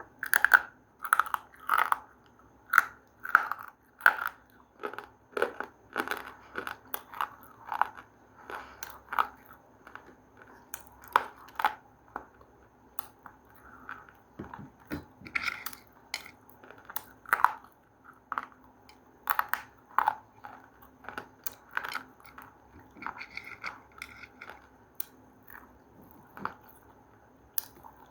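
Close-up chewing of a hard, brittle food: a run of sharp crunches, one to two a second, busiest in the first half.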